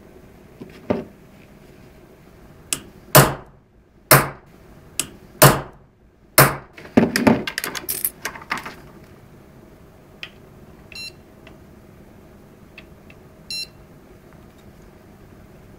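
Hammer striking a fixing tool to drive the locking ring into a metal button holder: four sharp knocks about a second apart, then a quick run of lighter taps, and two small metal clinks later on.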